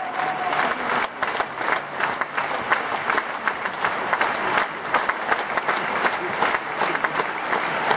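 Large theatre audience applauding at a curtain call: dense, steady clapping from many hands.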